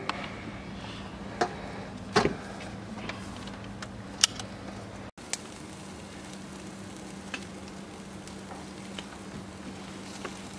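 Chicken and pork sizzling and crackling on a charcoal grill, a steady sputtering hiss, with a few sharp clicks and knocks in the first half.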